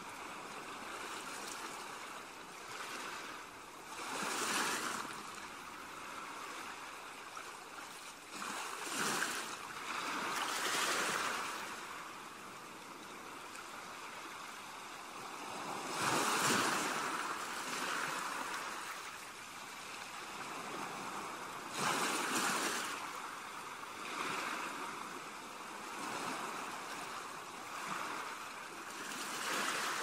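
Sea waves washing onto the shore as a steady rush, surging louder every few seconds as each wave comes in.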